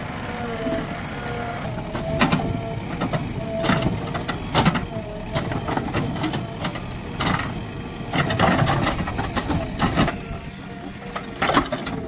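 Diesel backhoe loader at work in soil: an engine rumble with repeated sharp metallic clanks and knocks from the bucket and arm. A steady whining tone is heard at times.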